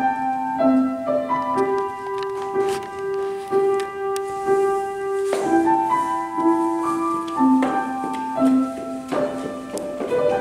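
Grand piano playing a melody of held notes and chords.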